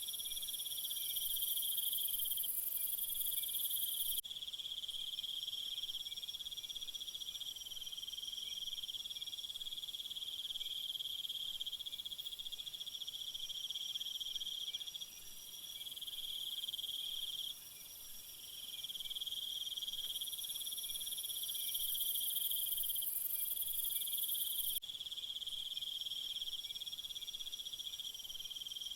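A chorus of crickets and other insects trilling steadily in a high, unbroken pulse. A louder, even higher buzzing joins near the start and again for about five seconds in the last third, each time stopping abruptly.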